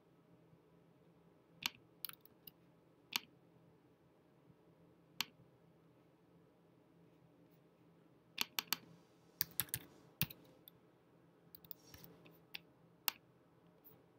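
Keystrokes on a computer keyboard: a few single taps in the first seconds, then a quick run of about eight presses about halfway through, and a few more near the end.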